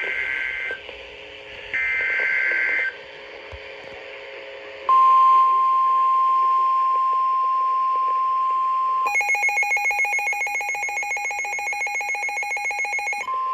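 Emergency alert tones: two short bursts of warbling SAME header data, then about five seconds in the steady single-pitch 1050 Hz NOAA Weather Radio warning tone. About nine seconds in, that tone gives way to a rapidly pulsing, multi-toned beeping alarm, and the steady tone returns briefly near the end.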